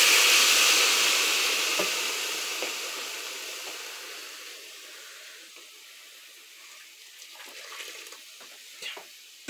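Water poured into a hot pot of rice toasted with angel-hair noodles, hissing and sizzling loudly at first and then dying away over several seconds. A few faint clinks come near the end.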